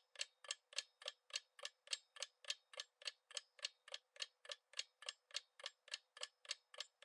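Quiz countdown-timer sound effect: a faint, even clock tick, about three and a half ticks a second.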